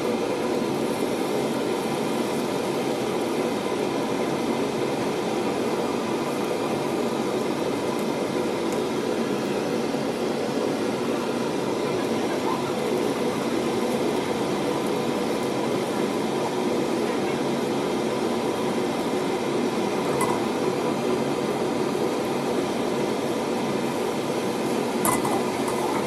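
Beaten eggs cooking in an oiled non-stick wok, a steady sizzle that stays even throughout. A few light clicks of wooden chopsticks against the pan come near the end.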